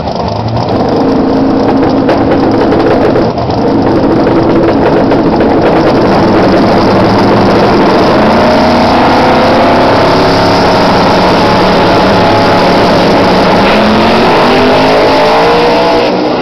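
Ford Mustang drag car's engine running very loud at high revs on the starting line, then launching and pulling away down the strip, the pitch climbing and shifting through the second half.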